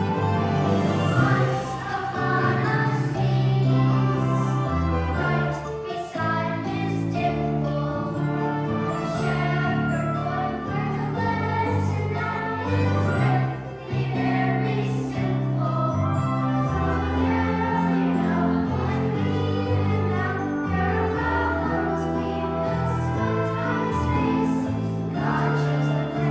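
A choir singing a song with instrumental accompaniment. Sustained bass notes sit under the voices.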